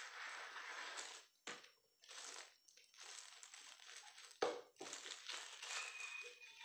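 Clear plastic wrap crinkling in the hands as it is handled and pulled off a handsaw, in several irregular bursts, with one sharp tap about four and a half seconds in.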